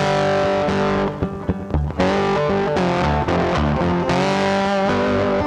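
Background music with guitar, thinning out briefly about a second in before it comes back in full.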